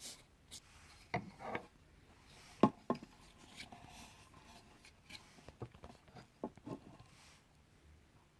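Irregular knocks, clicks and rubbing from hands handling the parts of a speaker being taken apart. The sharpest knock comes about two and a half seconds in, with a second one just after.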